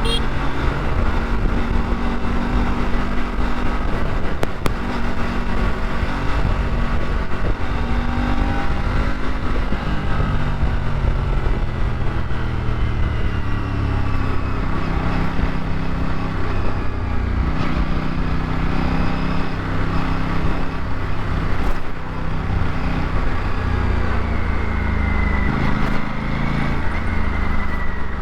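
Aprilia RS 457's parallel-twin engine running while the bike is ridden, heard from the rider's position. Its pitch rises and falls gently with the throttle, over a steady low rumble of road and wind.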